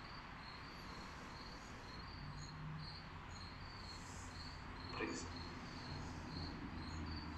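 Crickets chirping, a high, even chirp repeating about two or three times a second.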